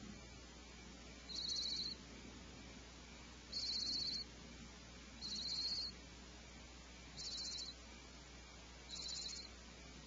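Barn owl nestlings giving their rasping, hiss-like 'snore' calls, the food-begging call of young barn owls. The calls come five times, each about half a second long, roughly every two seconds over a faint steady hum.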